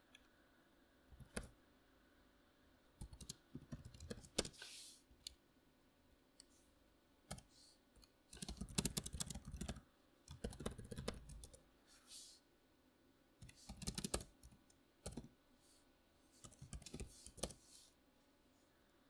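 Typing on a membrane computer keyboard in irregular bursts of keystrokes with short pauses between them, the densest run about halfway through.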